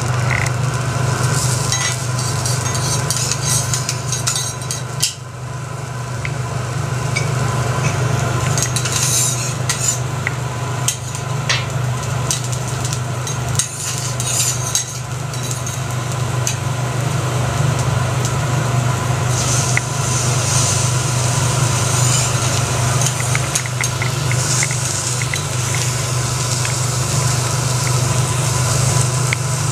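Metal spatulas scraping and clinking on a hot teppanyaki griddle, with food sizzling, over a steady low hum.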